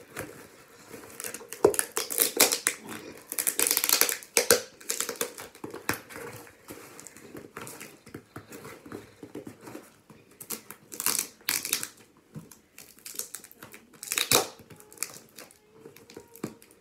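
Packing tape tearing and crinkling, and a cardboard box rustling, as a heavily taped package is worked open with a pen: irregular rips and crackles, bunched in the first few seconds and twice more later on.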